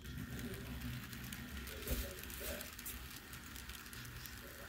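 Faint whir and light clicking of an N scale model train running on its track, the locomotive moving again after a stall, with one sharper click about two seconds in.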